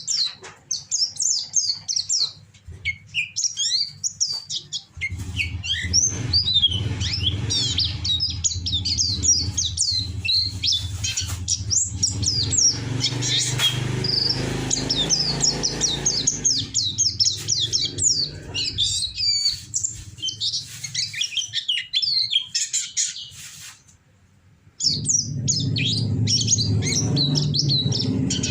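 Kiriwik birdsong: a fast, continuous run of high chirps and sweeping whistled notes, played as a masteran recording. A low steady hum runs underneath from about five seconds in. Everything breaks off briefly about 24 seconds in, then starts again.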